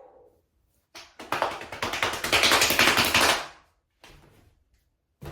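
A fast run of clicks, starting about a second in and lasting about two and a half seconds.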